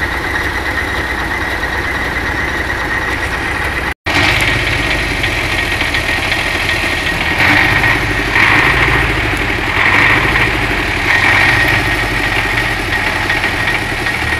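Engine idling steadily, with a steady whine on top. It cuts out for an instant about four seconds in and is a little louder in stretches later on.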